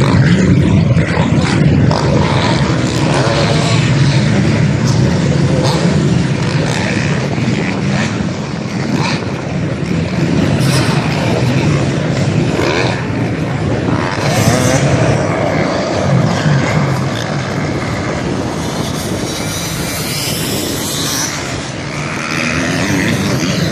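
Motocross dirt bikes racing, several engines revving hard and rising and falling with the throttle. Near the end the revving of a pack of bikes grows as they come closer.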